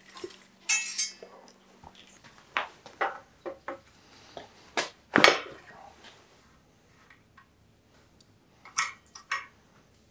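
Metal clinks and knocks of bicycle parts and tools being handled during a teardown: the handlebars with brake levers and cables pulled away from the steel frame, then a headset wrench set onto the headset locknut. A ringing metallic clatter comes about a second in, followed by a scatter of single knocks, the loudest about five seconds in.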